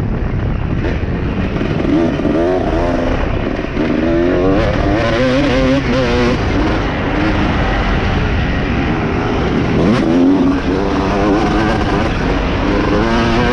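250cc motocross bike engine being ridden hard, its pitch rising and falling again and again as the throttle opens and closes through corners and straights, over a steady rush of wind.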